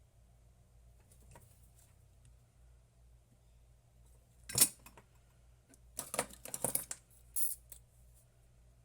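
Small tools being handled on a workbench: a sharp click about four and a half seconds in, then a quick run of light clicks and clatter a second and a half later.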